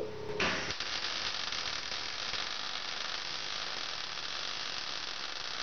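Electric arc welding on steel parts: a steady, dense crackling hiss of the arc that starts about half a second in and holds without a break.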